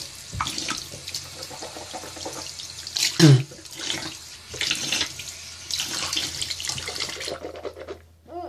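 Tap water running into a bathroom sink, then shut off near the end. About three seconds in, the person gags loudly, reacting to the taste of the soap on her toothbrush.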